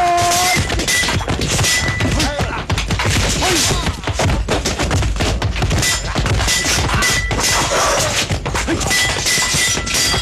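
Fight-scene sound effects: a dense, continuous run of thuds and clashing impacts from a melee, with a shout at the start.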